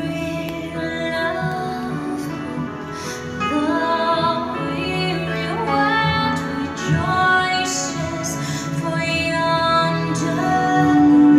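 A song with singing over instrumental accompaniment, the voice holding long notes and sliding between them.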